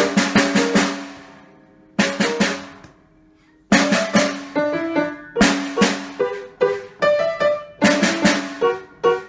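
Solo instrumental music: a lively piece of quick, sharply struck notes. It breaks off about a second in, rings away, strikes one more chord, pauses briefly, then resumes with fast running notes.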